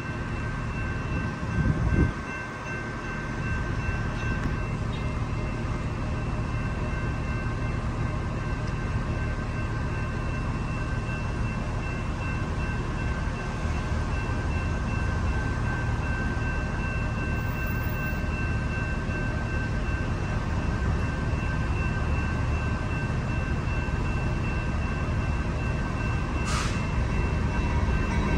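Steady low rumble of an idling city bus and street traffic, with a faint high steady whine over it. A brief thump comes about two seconds in and a short hiss near the end.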